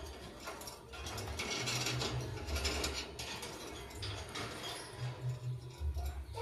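Lovebird cracking and chewing corn kernels with its beak: a run of small, irregular clicks and crunches.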